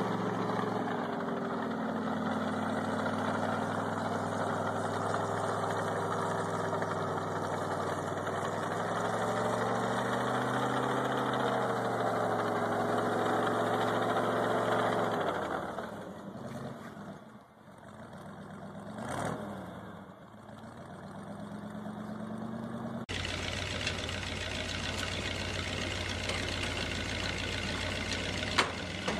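Tracked snowcat's engine running under load, its pitch rising and falling as it drives; the sound fades away briefly past the middle, then returns. About 23 seconds in it cuts to a Tucker Sno-Cat's engine idling steadily.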